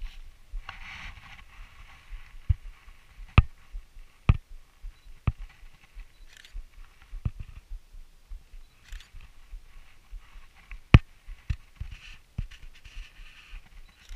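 Handling noise on a small action camera: scattered sharp knocks and taps, with fabric rubbing and rustling against the microphone as the camera is moved and set down among packs and gear. The loudest knocks come about three seconds in and again near eleven seconds.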